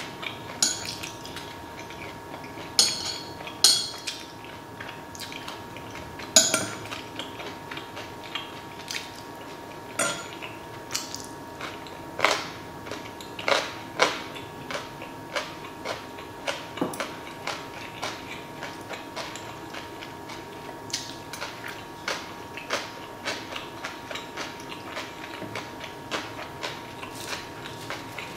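Close-miked eating: metal chopsticks clicking and tapping against stainless steel trays and a bowl, with chewing in between. The clicks come as a string of sharp taps, several loud ones in the first seven seconds, then many lighter ones at about one or two a second.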